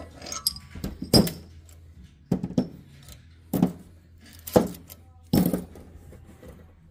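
Steel valve springs and retainers from a Cummins 24-valve cylinder head clinking and knocking as they are taken out and set down, about six separate metallic hits.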